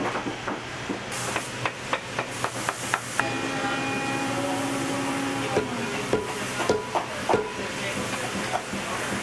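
Sharp, irregular clicks and scrapes of a knife scraping and trimming leather at a boot's toe, over a steady low hum. A held tone sounds for about two seconds near the middle.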